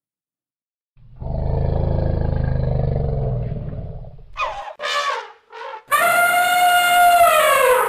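Elephant sound for a logo sting: a low rumbling growl lasting a few seconds, then a few short squeals, then a long trumpet call that holds steady and falls in pitch at the end.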